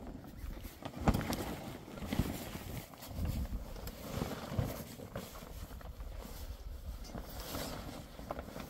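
Heavy canvas tent cover rustling and flapping as it is pulled and dragged over dry ground, with a sharp knock about a second in. Wind buffets the microphone throughout with a low rumble.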